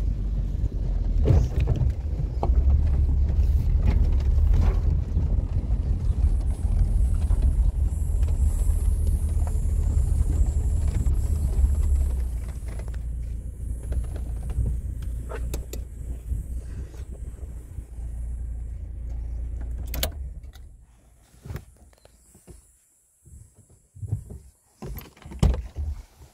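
Low, steady rumble of a vehicle running, easing off about halfway through, with scattered clicks and knocks.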